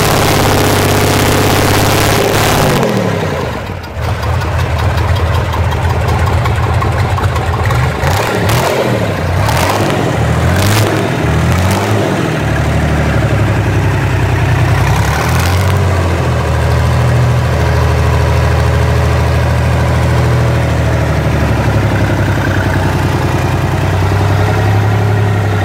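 Deutz F6L413 air-cooled V6 diesel engine running, loud and high at first, then dropping back about three seconds in to a steady running drone, with the revs rising and falling a few times near the middle.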